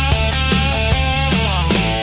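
Instrumental rock music: guitar over bass and drums with a steady beat of about two and a half hits a second. Near the end the drums and bass drop out, leaving guitar notes ringing.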